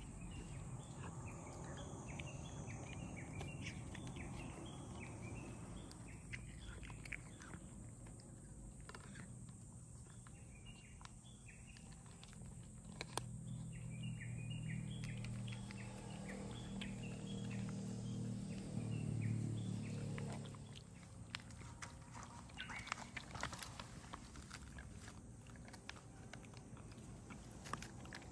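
Stray cats chewing dry kibble from bowls on the ground, with small birds chirping repeatedly. A low rumble builds from about thirteen seconds in and cuts off around twenty seconds, followed by scattered crunches and crackles.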